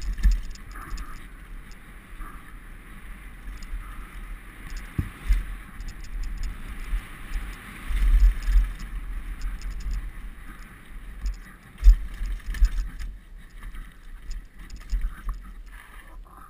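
Downhill mountain bike riding fast over a dirt and gravel trail: a steady hiss of tyres on loose ground, with low thuds and knocks as the bike hits bumps and roots. The heaviest knocks come about 8 s and 12 s in.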